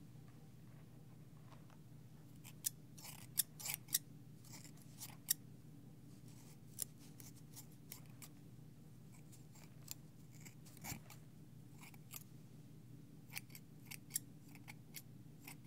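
Haircut scissors snipping close to a binaural microphone: crisp snips in irregular clusters, over a steady low hum.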